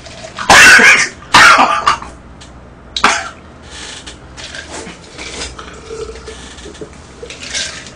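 A man coughing hard while eating spicy braised monkfish: two loud coughs in the first two seconds, then one shorter, sharper cough about three seconds in, followed by quieter throat sounds.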